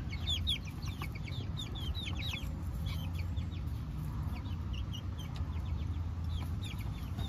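Chickens calling close by: short, high-pitched falling notes in quick runs, several a second, over a steady low hum.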